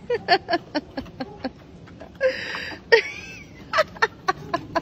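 A person laughing in rapid short bursts, with a breathy, wheezing stretch about two seconds in.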